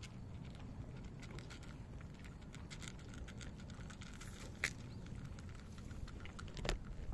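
Cats crunching dry kibble: a run of small, irregular crackling clicks, with a couple of sharper clicks in the second half.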